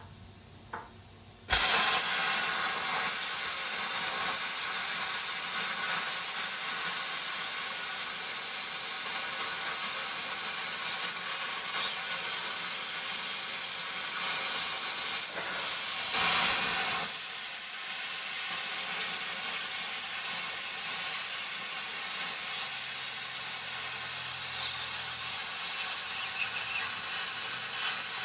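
Plasma cutter torch cutting a hole through the tractor cab's steel: it fires with a sudden start and then runs with a steady, loud hiss, swelling briefly a little past halfway.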